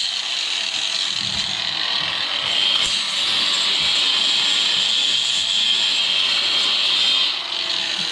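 Electric angle grinder grinding down welds on a steel plate, a steady high-pitched whine that dips briefly near the end.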